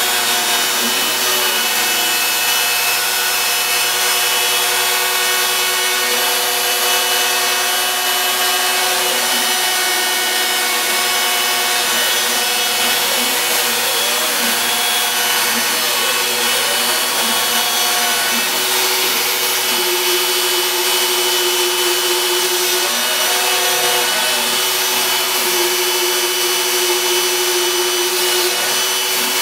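Home-built CNC router cutting MDF: the router spindle runs with a steady whine and cutting noise, while lower tones from the axis stepper motors rise and fall again and again as the machine traces curves.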